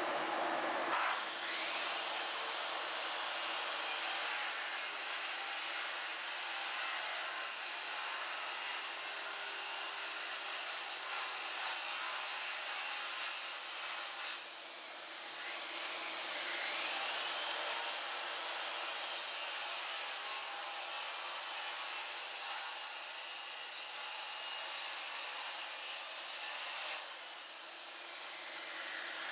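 Corded circular saw cutting a sink opening in a fiberboard countertop, in two long cuts. Each cut starts with a rising whine as the motor spins up, about a second in and again just past halfway, and ends with a sudden drop when the saw stops; the motor spins up once more at the very end.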